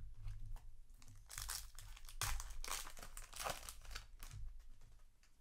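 Foil booster-pack wrapper crinkling as the pack is opened and the cards are slid out, a run of crackles from about one to four seconds in.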